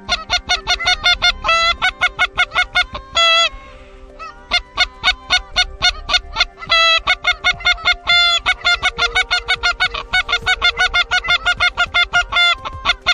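Geese honking, many rapid overlapping calls at several pitches.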